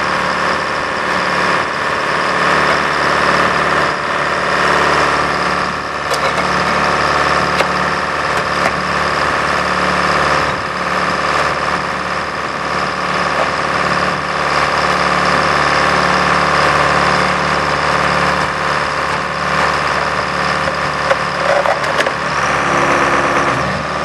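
Detroit Diesel engine of an Al-Jon 400 logger/baler running steadily.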